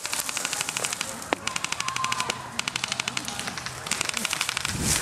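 Airsoft rifle firing full-auto: four or five short bursts of rapid, evenly spaced clicks.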